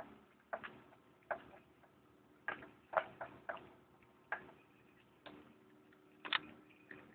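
Sharp plastic clicks from an old Compaq LTE Lite 4/40CX laptop's keys and trackball buttons being pressed: about ten clicks at uneven intervals, over a faint steady hum.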